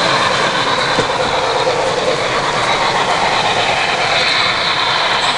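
Model freight train of boxcars rolling along layout track: a steady rolling rumble and clatter of wheels on rail.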